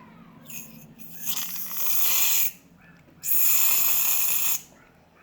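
Aerosol can of shaving foam sprayed in two long hisses, the second starting about half a second after the first stops.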